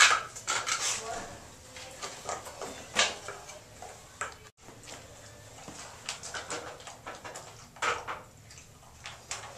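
A dog chewing and shifting about on a fleece mat, then, from about halfway, eating dry kibble from a stainless steel bowl: scattered clicks and clinks of kibble and teeth against the metal.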